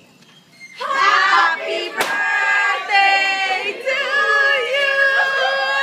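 A group of people bursting into loud shouting and then singing together, about a second in, for a surprise party's arrival. A single sharp crack cuts through about two seconds in.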